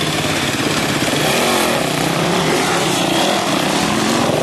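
Dirt bike engines revving hard on a loose sandy hill climb, the pitch rising and falling with the throttle.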